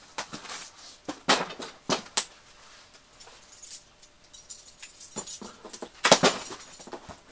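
Large cardboard box handled and laid down flat, with a few sharp knocks in the first couple of seconds, then small clicks and rustling as white plastic packing straps around the box are cut with a knife near the end.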